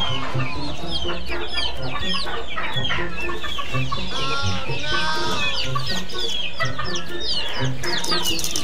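A flock of chickens clucking and calling, with many short, high calls overlapping throughout.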